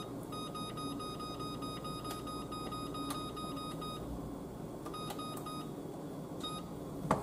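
Electronic beeps from a kitchen range's control panel as the oven timer is set: a quick run of short, high beeps for about four seconds, then a few single beeps.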